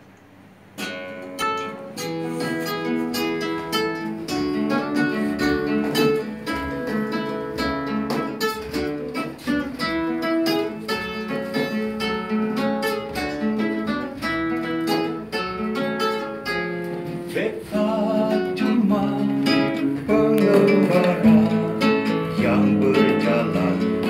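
Acoustic guitar playing a song's intro, picked and strummed, starting about a second in.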